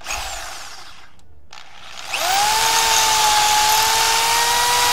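Electric drill boring into an engine's metal casting to open a broken-bolt hole to tap-drill size for a Heli-Coil: a short burst of drilling, then about two seconds in the motor speeds up to a steady whine and holds while the bit cuts.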